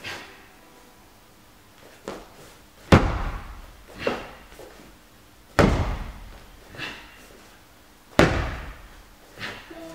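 Explosive movements of a Chen-style taijiquan Cannon Fist form: three heavy thuds about two and a half seconds apart, foot stomps and strikes landing on a padded mat, with lighter sharp cracks in between, each ringing briefly in a large hall.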